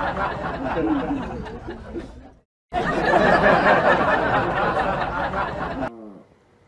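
A dense hubbub of people's voices chattering and laughing. It breaks off for a moment about two and a half seconds in, then resumes. Near the end it gives way to one short falling whine.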